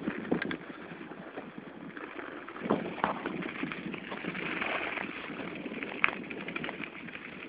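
Steady crunching and scraping over packed snow, with irregular knocks and clicks, strongest about a third of the way in and again near the end.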